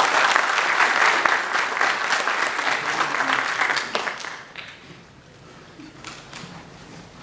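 Audience applauding, dying away after about four seconds into quiet.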